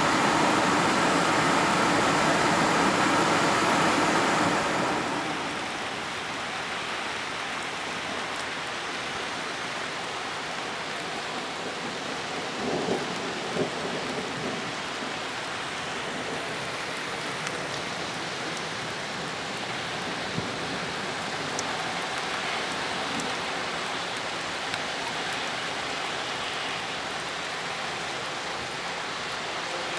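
Steady rain falling during a thunderstorm, an even hiss. A louder rushing sound at the start fades away about five seconds in, and a couple of brief knocks come around the middle.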